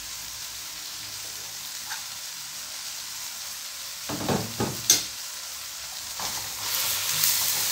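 Curry masala with freshly added ground spices frying in hot oil in a pan, sizzling steadily. About four seconds in a spoon scrapes through it and knocks sharply once against the pan, and the sizzle grows louder near the end.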